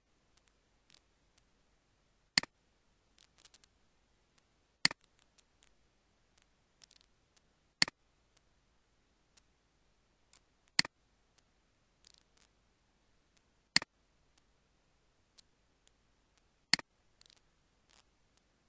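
Computer mouse clicking: a sharp single click about every three seconds, with fainter clicks and small rattles between.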